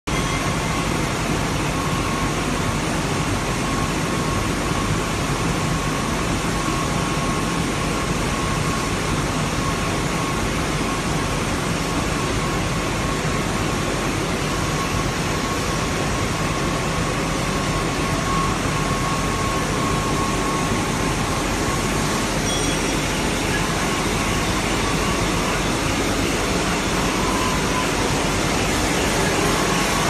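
Glass washing machine for curved mirror glass running: a steady, even rush of noise from its rotating brushes, high-pressure spray bars and air-knife dryer blowers, with a faint steady whine above it.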